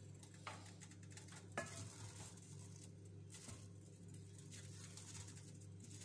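Spoon working through cooked rice in a metal pot: soft scraping and one light knock of the spoon on the pot about a second and a half in, over a steady low hum.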